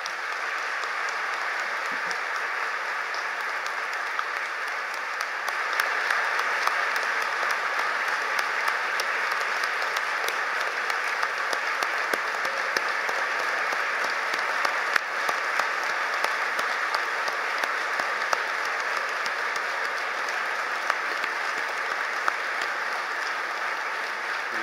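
A large audience applauding steadily, a dense mass of handclaps that grows louder about five seconds in.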